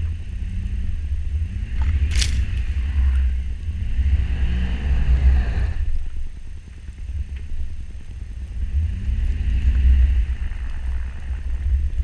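Chevrolet Avalanche V8 through a Dynomax Bullet muffler, revving up and down several times as the lifted truck drives through deep snow, with a deep rumble throughout. A single sharp click about two seconds in.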